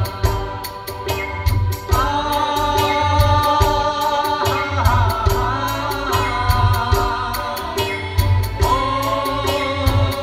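Live band playing a Nepali song between sung lines: a steady drum rhythm under a melody of long held notes.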